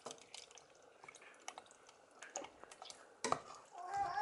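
A whisk stirring a mushroom cream sauce in a stainless steel pot: faint scattered clicks and scrapes of the whisk against the pot, with one louder knock near the end.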